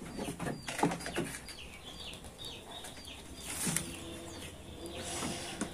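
Goats eating greedily from a plastic basket of mash feed: chewing and nosing the feed, with a few soft knocks. Small birds chirp faintly in the background.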